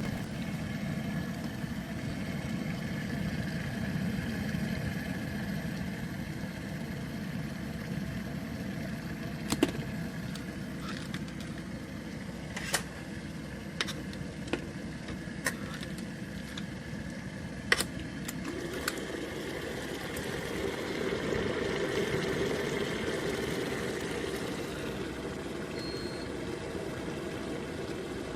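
Electric kettle heating water: a steady rumbling hiss with a few sharp ticks, the rumble growing stronger and higher about two-thirds of the way in as the water nears the boil.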